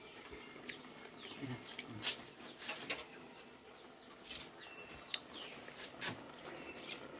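Birds chirping in the background, many short falling calls, with a few light clicks and knocks and one sharp click about five seconds in.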